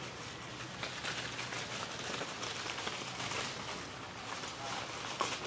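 Dry fallen leaves crackling and rustling underfoot as someone walks through leaf litter, a dense run of small irregular crackles, with one slightly louder crackle near the end.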